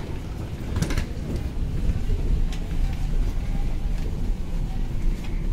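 Wheeled carry-on suitcase rolling along a hard floor with a steady low rumble, with a few sharp knocks about a second in.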